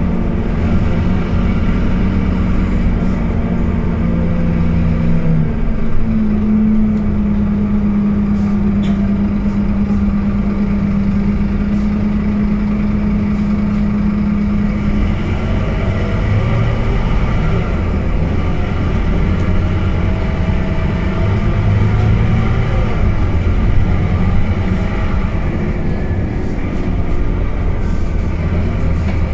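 Scania K230UB single-deck bus driving, heard from inside the passenger cabin: steady engine drone and road noise, with a whine that shifts pitch about six seconds in and fades out about fifteen seconds in.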